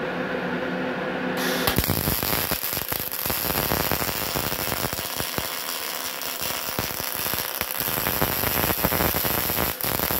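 MIG welding arc from a MIG 350N-GKR welder on steel plate, with shielding gas. The arc strikes about two seconds in and crackles steadily for the rest of the time.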